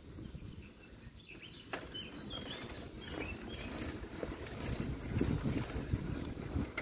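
Outdoor ambience of birds chirping in short calls a couple of seconds in, over an uneven low rumble of wind and movement on the microphone of a phone carried by someone walking.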